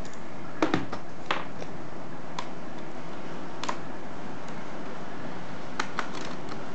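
Sharp plastic clicks and knocks from an Acer laptop being turned over onto a table and its underside cover and parts handled, the loudest pair about half a second in and a few more scattered after, over a steady background hiss.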